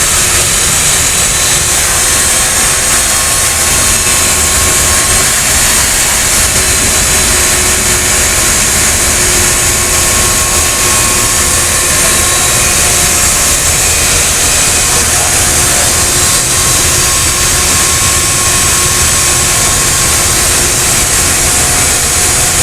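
Heat pump water heater unit running: its fan gives a loud, steady rush of air with a faint steady hum underneath, blowing out cold exhaust air.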